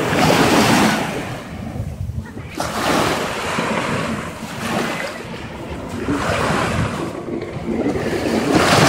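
Small sea waves breaking and washing up a sandy beach, the surf swelling and fading every couple of seconds.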